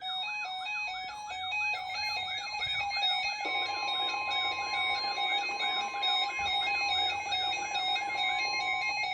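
Electronic emergency-alert tones: a fast repeating warble and stepping beeps. About three and a half seconds in they are joined by a steady single tone near 1 kHz, in keeping with the weather radio warning alarm tone.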